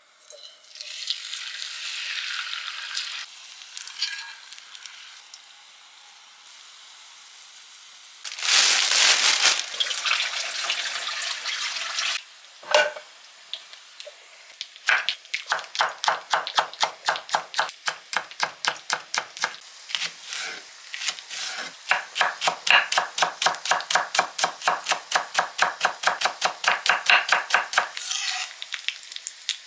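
Kitchen food-preparation sounds: a loud rush of noise partway through, then a fast, even run of strokes, about four a second, each with a short ringing tone, which stops near the end.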